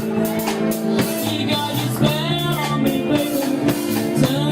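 Live rock band playing: an electric guitar holds notes and bends them with vibrato about two seconds in, over bass and drum kit.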